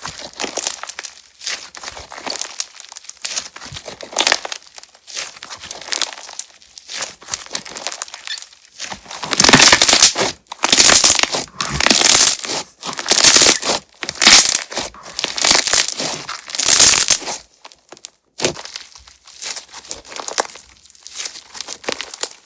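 Crunch-texture slime being squeezed and pressed by hand, crackling and popping throughout. A run of about seven louder, firmer presses comes in the middle, each about a second apart, before it goes quieter again.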